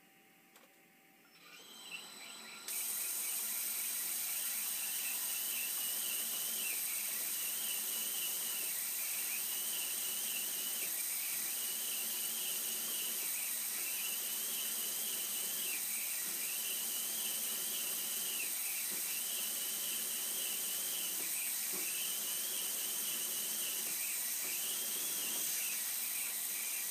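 Mist-coolant air nozzle hissing steadily over a milling cut, switching on suddenly about three seconds in. Under the hiss, the end mill's cutting sound rises and falls about every two seconds as it works into the part held in the vise.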